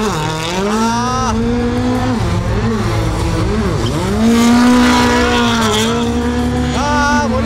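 Race car drifting: its engine revs rise and fall repeatedly, holding steady in between, with tyre squeal.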